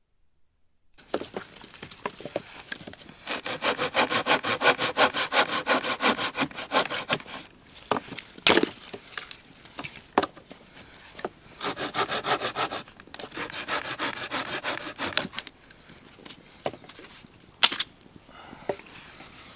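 Hand saw cutting wood in quick back-and-forth strokes, in three spells, with a few sharp knocks between them.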